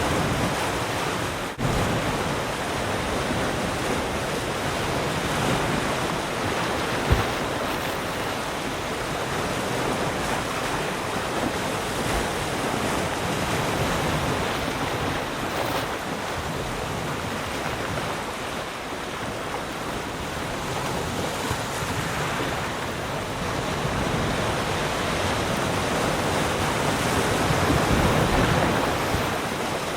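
Ocean waves washing onto a shore: a continuous surf wash that rises and falls slowly as sets roll in, building to a louder wave near the end. There is a short dip about a second and a half in and a brief thump about seven seconds in.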